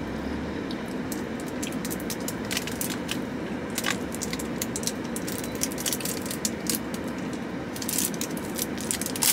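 A plastic snack wrapper crinkling and crackling as it is torn open by hand, in short bursts of sharp crackles over steady background noise.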